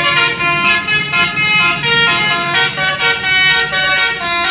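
Basuri telolet horn, a multi-note musical vehicle horn, playing a quick melody, one loud note after another.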